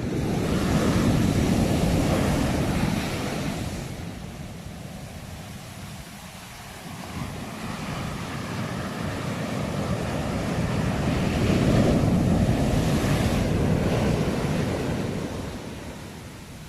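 Sea waves breaking and washing on the shore: one wave rushes in and fades over the first few seconds, then after a lull a second, longer surge builds to a peak about twelve seconds in and ebbs away.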